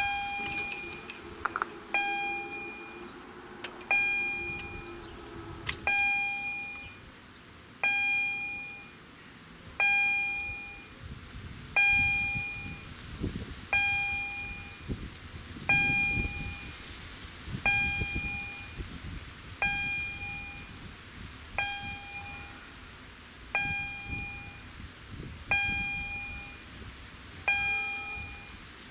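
Level-crossing warning bell striking once about every two seconds, each strike ringing and dying away. A low steady hum underlies the first six seconds or so, while the barrier arm comes down.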